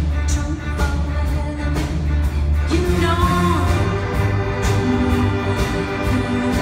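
Rock band with orchestra playing live: a heavy, steady bass riff under drum hits and sustained instrument tones, with a short sung or lead line about halfway through.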